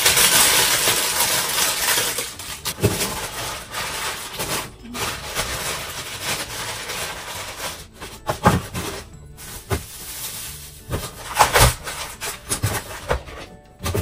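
Crinkling plastic food bags, then scattered knocks and clatters as frozen packets are handled and set into plastic freezer drawers, with background music under it.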